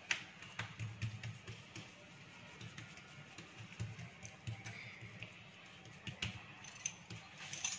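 Faint, irregular taps and clicks of hands pressing and patting bread dough flat on a countertop.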